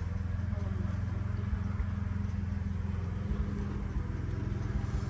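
Portable generator running with a steady low hum.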